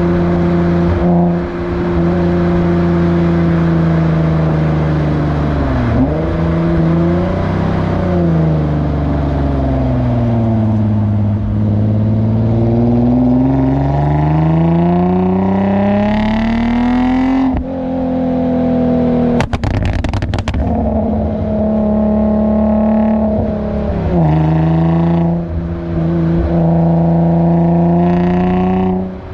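Infiniti G35's 3.5-litre V6 through a Motordyne Shockwave exhaust, heard close at the tailpipe while driving: the exhaust note holds steady, dips, sags and then climbs slowly under acceleration. About two-thirds through the pitch drops suddenly as the throttle comes off and a short burst of sharp crackles follows, the tune's overrun pops; near the end the pitch drops again.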